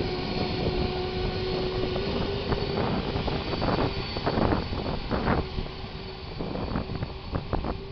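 Airliner jet engine running: a steady drone with a held mid-pitched tone and a faint high whine, broken by irregular short rushing bursts. It is the strange noise heard from the engine.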